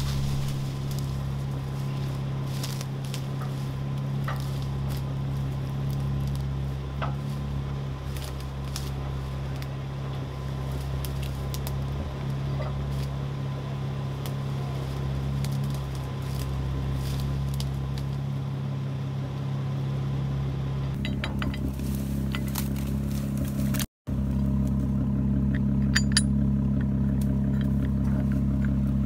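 Jeep Wrangler engine idling steadily, with scattered light metal clinks as a winch line, hook and bumper D-ring shackle are handled.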